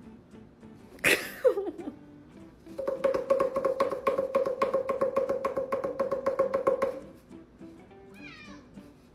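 Calico cat yowling: a sudden cry falling in pitch about a second in, then a long, pulsing yowl on one steady pitch lasting about four seconds. Background music plays underneath.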